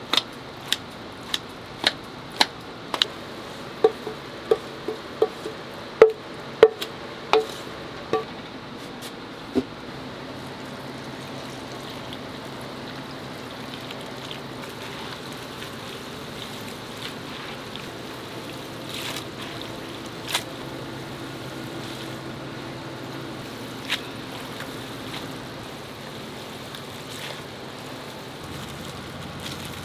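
Kitchen scissors snipping through a pot of cooked glass noodles, about two sharp snips a second for roughly the first ten seconds. After that there are only a few scattered clicks over steady kitchen background noise.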